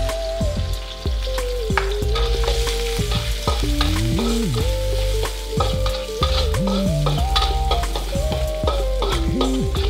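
Metal spatula scraping and clicking against a wok as sliced ginger, shallots, garlic and lemongrass are stir-fried, with the oil sizzling. A slow melody runs under it.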